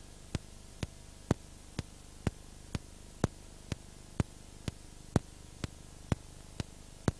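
Roland VS-1680's built-in metronome clicking in time during playback, about two clicks a second, with a louder click on every fourth beat marking the first beat of each measure.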